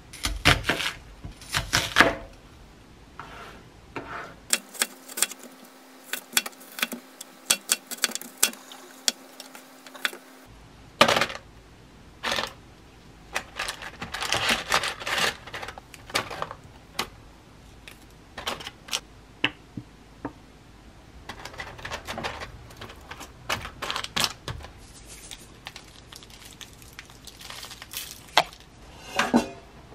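Kitchen prep sounds: irregular sharp clicks and knocks of a knife on a plastic cutting board, and of mushrooms and onion pieces being set into a parchment-lined air fryer basket.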